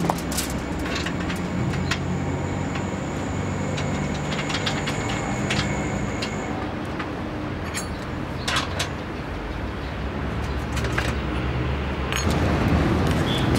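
Steady low rumble of a nearby motor vehicle running, with scattered small metallic clicks and taps as a screw is turned to clamp an earth cable onto an aluminium solar-panel mounting rail. A thin high whine runs through the first half.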